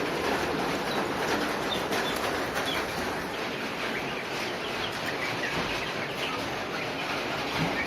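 Steady rain falling, with short bird chirps scattered over it.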